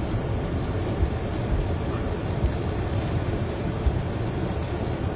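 Cabin noise of a car driving along a flooded road in heavy rain: a steady low rumble of the car and water, with occasional short low thumps.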